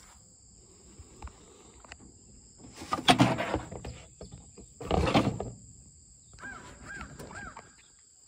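Phone handling noise: two loud, short bumps and rubs, about three and five seconds in, as the phone is propped down on a rusty metal surface. Under them runs a steady high buzzing of insects, and a bird gives three short calls near the end.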